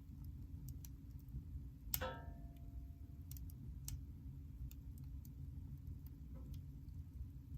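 Wood fire crackling in a fireplace: scattered small snaps over a steady low rumble, with one louder pop about two seconds in that rings briefly.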